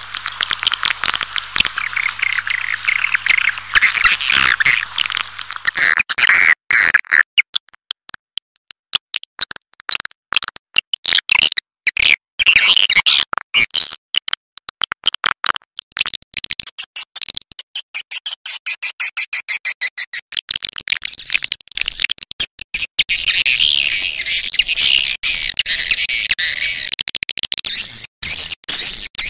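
Swiftlet lure call of the kind played in swiftlet farming: edible-nest swiftlets twittering in rapid high chirps and clicks. A dense chatter with a low steady hum under it for the first few seconds, thinning to sparse bursts of chirps in the middle, then dense chatter again near the end.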